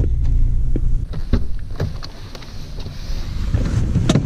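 Vehicle engine running with a steady low hum that drops away about a second in, followed by a few clicks and handling knocks inside the cab. A sharp door-latch clunk near the end as the driver's door opens.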